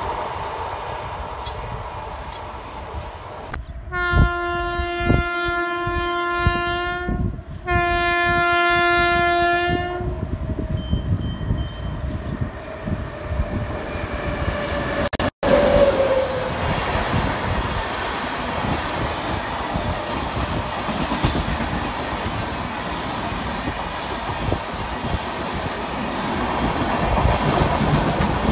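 Indian Railways locomotive air horn sounding two long blasts, the first about three seconds and the second about two, over the rumble of a goods train of covered wagons rolling past. After that an express of sleeper coaches runs through, with a steady rumble and clickety-clack of wheels over the rail joints.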